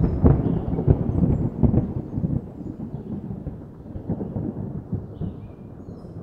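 Thunder sound effect: a sudden crack that breaks into a rolling rumble with crackles, loudest in the first couple of seconds and then slowly fading away.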